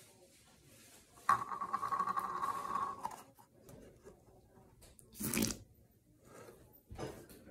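Noise putty being pressed back into its plastic tub, forcing air out. It makes a pitched squeal a little under two seconds long about a second in, then two short squelching pops, one near the middle and one near the end.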